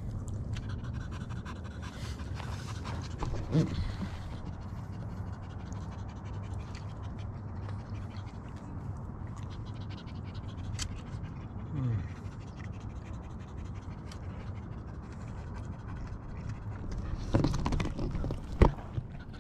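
A dog panting steadily. A couple of short falling vocal sounds and scattered clicks come through, with a sharp click near the end.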